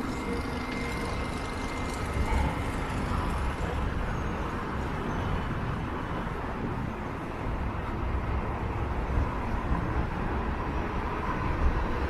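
Downtown street traffic running steadily, with wind buffeting the microphone in uneven low rumbles.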